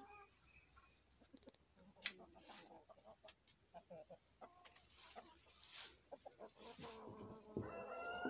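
Hens clucking in a coop while a shovel scrapes and scoops composted leaf litter and droppings into a bucket, with scattered scrapes and knocks, the sharpest about two seconds in. Near the end a hen gives a longer, held call.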